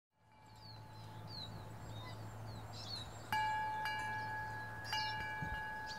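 A chime struck about three seconds in and again near five seconds, each strike ringing on with a clear, lingering tone. Small birds chirp throughout, over a faint low hum that stops near the end.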